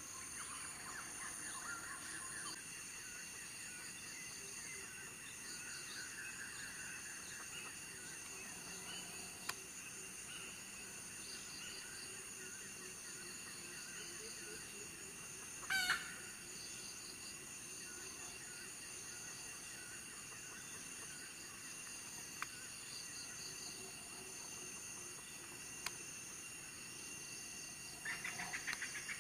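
Red junglefowl calling: one short, loud call about halfway through, over the steady chirring of insects.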